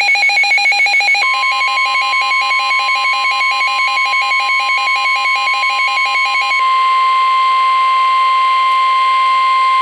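NOAA Weather Radio alert: the steady 1050 Hz warning alarm tone sounds, signalling that a warning broadcast follows. Fast pulsing beeps at two pitches run over it and stop about six and a half seconds in, leaving the single steady tone.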